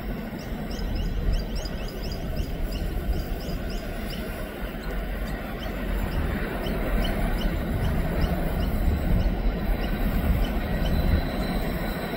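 Pacific National NR class diesel-electric locomotives approaching with a deep, steady engine rumble that grows louder through the second half. In the first half, quick, high, falling chirps repeat several times a second.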